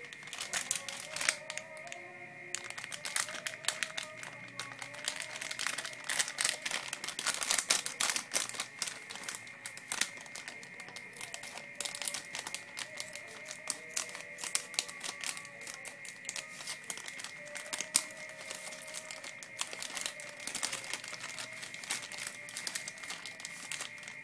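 Shiny plastic blind-bag packaging crinkling and crackling in quick, irregular bursts as it is handled, snipped open with scissors and the contents pulled out.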